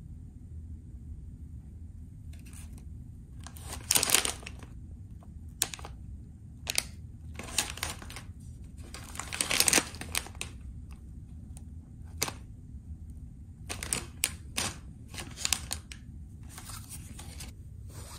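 Plastic snack packets crinkling in short irregular bursts as they are picked up and handled, over a steady low room hum.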